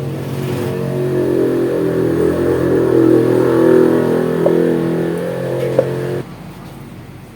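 Zacchi air compressor running: its motor and pump give a steady drone that grows louder, with a sharp click about a second before it cuts off abruptly near the end.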